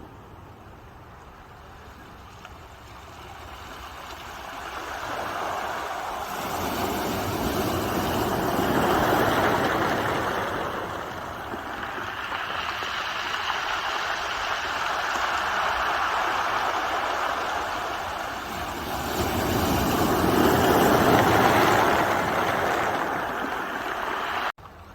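Ocean waves breaking and washing up the shore as a steady rushing noise that swells to a loud peak twice, about twelve seconds apart. It cuts off suddenly near the end.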